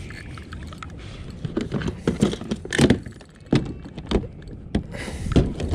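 Irregular knocks, clatters and rattles of fishing gear handled against a plastic sit-on-top kayak, several sharp knocks about two seconds in and again near the end.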